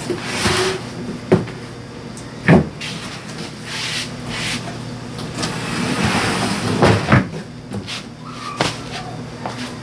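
Knocks, creaks and scraping as a tall pine-board rack holding plastic tubs is tipped over and set down on its side: several sharp knocks, the loudest about two and a half seconds in, with stretches of scraping and shuffling between them.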